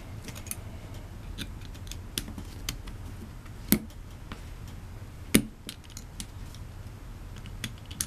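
Small metallic clicks and scrapes of a pick working at the brass lock core of a cheap padlock, prying at its retaining clip. There are two sharper clicks, one a little before the middle and one a little after.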